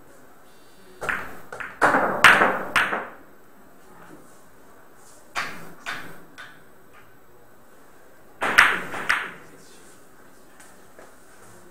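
Billiard balls knocking on a pocketless carom table: three short runs of sharp clicks, about a second in, around the middle and near the end, as the cue strikes and the balls hit each other and the cushions.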